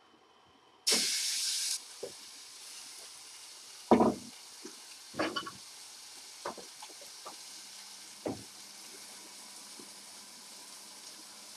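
Chicken pieces going into a frying pan of hot butter: a loud sizzle bursts out about a second in and settles into a steady frying sizzle. Five sharp knocks break through it as the chicken is handled in the pan, the loudest about four seconds in.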